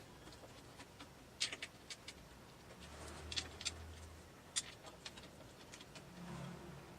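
Faint, scattered clicks and taps of screws being fastened to hold a PC case's tempered-glass side panel, in a few small clusters.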